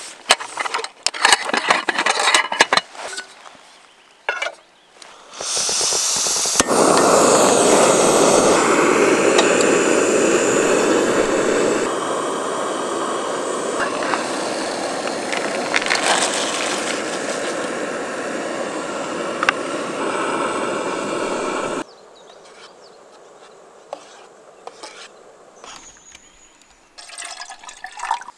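A run of clicks and knocks as camping gear is handled, then water pouring in a steady rushing stream for about fifteen seconds that stops abruptly, followed by a few light clicks.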